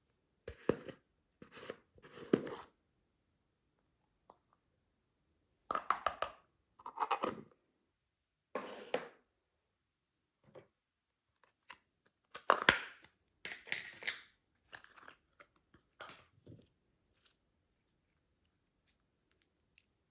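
Plastic bags crinkling and crunching in short, irregular bursts as slime is squeezed and worked inside them, with quiet pauses in between.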